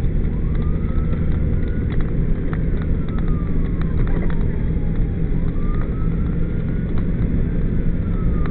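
Fire apparatus siren on a wail, rising quickly and then falling slowly, about five seconds a cycle, faint under loud, steady vehicle engine and road rumble, with scattered clicks.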